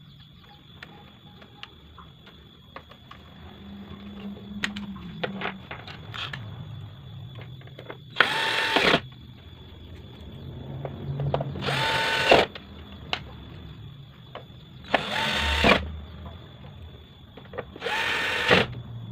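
Cordless drill-driver spinning in four short bursts, each under a second, driving in screws on a plasma TV's circuit board. Before the first burst, small clicks and taps of parts being handled.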